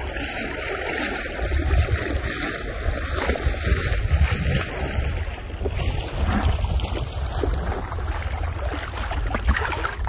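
Wind rumbling on the microphone over the steady wash of river water lapping and sloshing around a person wading.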